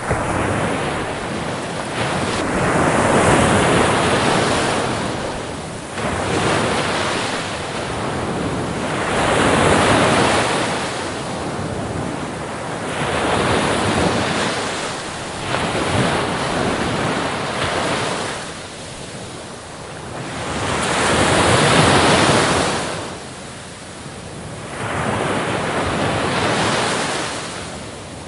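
Sea waves breaking on the shore, surging and receding in a slow rolling rhythm, one wave every three to four seconds, the loudest a little after the middle.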